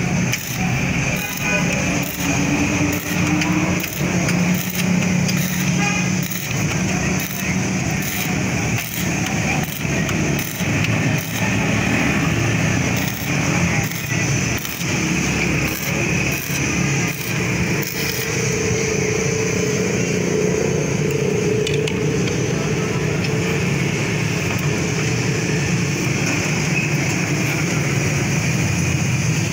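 Stick (arc) welding on a motorcycle's kick-start shaft, the arc crackling and hissing unevenly. After about eighteen seconds the crackle stops and a steadier hum carries on.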